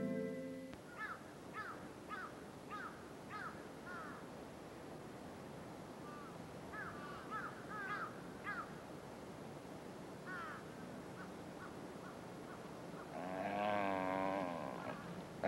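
Crows cawing in short series of repeated hooked calls over a faint outdoor hiss. Near the end a louder, wavering drawn-out pitched sound comes in.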